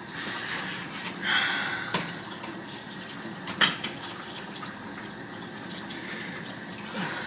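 Kitchen tap running into a sink, with water splashing as a lobster is rinsed under it. A sharp knock comes about three and a half seconds in.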